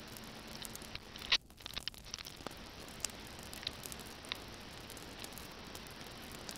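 Steady faint hiss with small clicks scattered through it. There is one sharper click about a second in, after which the hiss briefly drops away.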